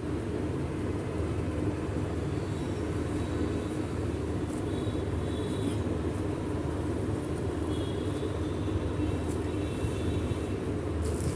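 Steady low background rumble with a faint hum, with faint light clicks near the end as plant pots are handled.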